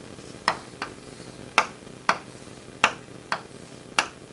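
Chalk knocking sharply against a chalkboard as straight lines are drawn: seven separate taps at an uneven pace.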